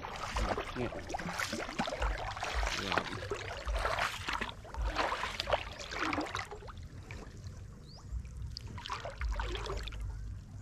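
Water splashing and sloshing, busy for about the first six seconds, then quieter with scattered splashes.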